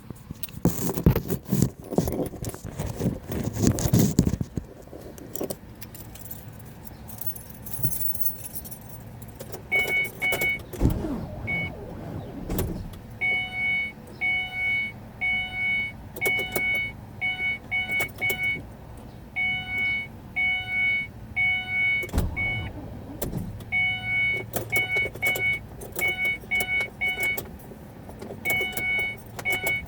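Car keys jangling, then a car's electronic warning chime beeping over and over in short runs, in a car that won't start.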